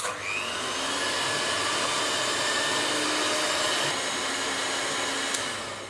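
Electric hand mixer running steadily with a motor whine, its beaters whipping a thick cream-based kulfi mixture in a steel pot. The sound starts abruptly and fades out near the end.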